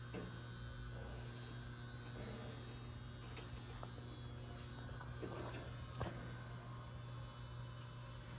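Sunnen precision honing machine running, giving a steady electric hum, with a single sharp click about six seconds in.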